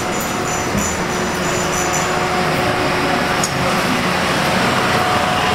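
Steady street traffic noise, with a faint steady hum from a vehicle engine.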